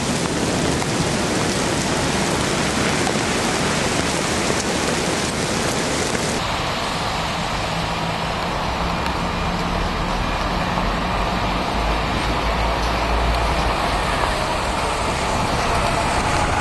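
Heavy rain pouring down on a city street, with a vehicle driving past on the wet road. About six seconds in it cuts to a duller, quieter outdoor hiss with a low rumble underneath.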